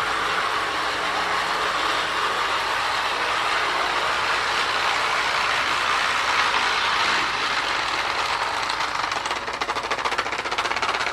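Marx pre-war Commodore Vanderbilt toy train running on its track: the electric motor and wheels make a steady mechanical running noise that stops abruptly at the end.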